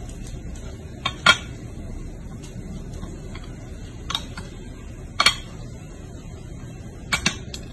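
A metal fork clinking against ceramic dishes as someone eats: a few sharp, scattered clinks, loudest about a second in and just after five seconds.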